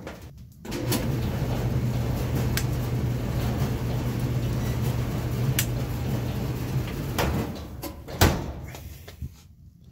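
Electric clothes dryer running: a steady hum and rumble that cuts off about seven seconds in. A sharp click follows a second later.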